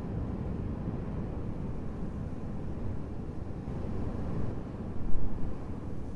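Steady low rumble of a moving vehicle, with wind noise over it, swelling louder for a moment about five seconds in.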